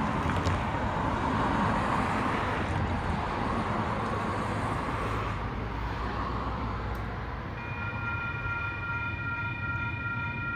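Approaching freight train's multi-chime air horn sounds a steady chord from about seven and a half seconds in, the horn for the grade crossing. Before it, a steady rumble of road traffic.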